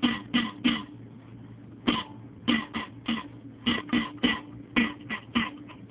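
Aluminium beer can played as a percussion instrument, giving a rhythmic run of short, pitched pops, with a pause of about a second between the first few and the rest.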